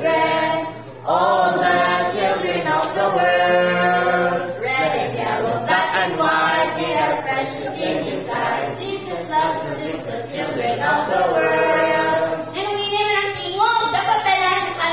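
A girl singing unaccompanied into a microphone, with long held notes and no instruments.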